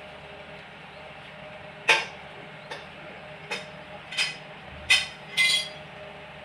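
Metal clinks and knocks from tools and engine parts being handled: about six sharp strikes, the loudest about two seconds in, a short ringing clink near the end, over a faint steady hum.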